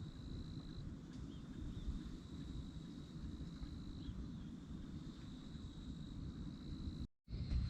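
Outdoor ambience: a steady low rumble under a thin, continuous high-pitched insect trill. The sound cuts out completely for a moment near the end.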